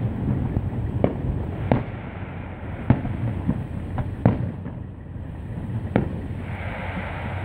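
Aerial firework shells bursting: a string of sharp bangs, about seven at uneven intervals, over a steady low rumble.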